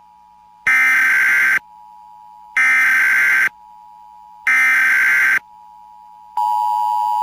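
Emergency Alert System tones on FM radio. First come three bursts of digital SAME header data, each about a second long and spaced about two seconds apart, with a faint steady tone in the gaps. Near the end the EAS two-tone attention signal starts, a loud steady dual tone.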